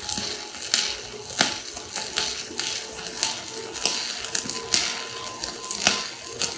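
Stick welding arc burning from a 1/8-inch E7018 low-hydrogen electrode on a mild steel lap joint: a steady crackle with irregular sharp pops.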